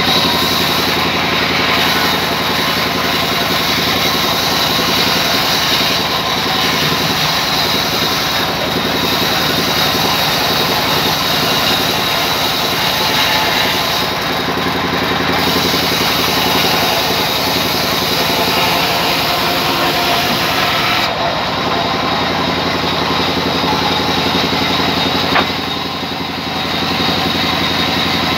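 Large vertical band saw running steadily as it cuts a slab off a rain tree log, a continuous mechanical hum with a thin high whine over it. A click about 25 seconds in, followed by a brief drop in level.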